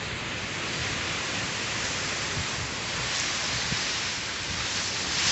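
Steady heavy rain of Hurricane Fiona pouring down in an even, unbroken hiss.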